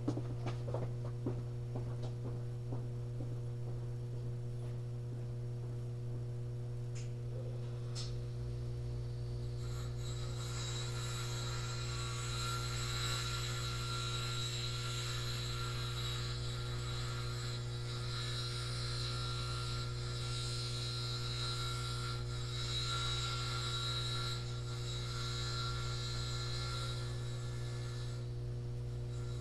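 Steady electrical hum throughout. From about ten seconds in, a fainter grinder runs with a whining, grinding noise for roughly eighteen seconds and then stops, as the TIG torch's tungsten electrode is reground after it was contaminated.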